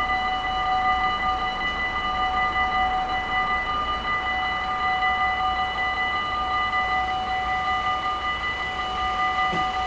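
Dutch automatic level-crossing warning bells ringing continuously while the crossing is active.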